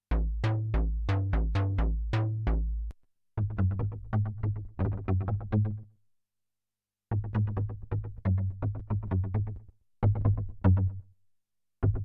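Cherry Audio DCO-106 software synthesizer, an emulation of the Roland Juno-106, playing short, staccato bass-note phrases. The bass presets are 'Noisey Sub' and then 'Noisy Knocking'. Four phrases come in turn, with brief silences between them.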